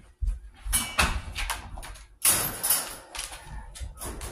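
Wire dog crate rattling and clattering, with rustling, as a dog moves about right beside it; the loudest clatter comes about halfway through.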